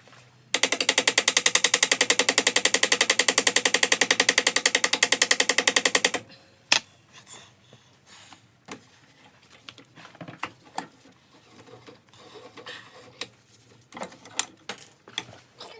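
A welder's arc laying a bead on a motorcycle frame: a rapid, evenly pulsing crackle for about five and a half seconds, then stopping. It is followed by scattered light clicks and taps.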